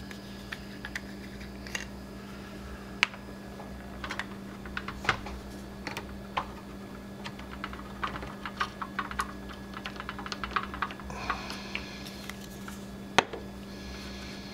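Scattered light clicks and taps of plastic model-kit parts being handled and pressed together, with one sharper knock near the end, over a steady low hum.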